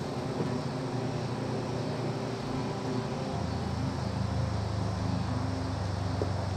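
A steady low engine drone, growing a little stronger about halfway through.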